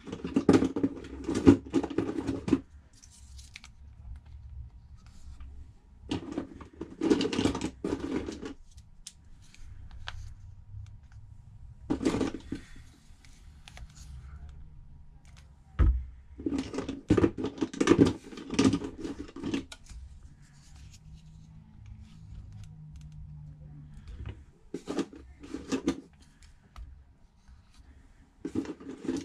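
Clamps being fitted around a phone to hold its freshly glued back glass, heard as several bursts of rapid clicking and scraping with pauses between them, and a low thump about two-thirds of the way through.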